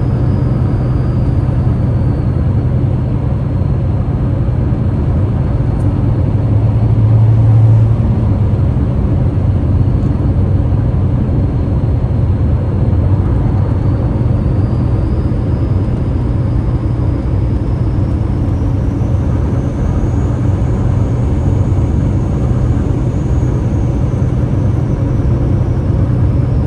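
Waterfall roaring: a loud, steady rush of falling water, heaviest in the low end.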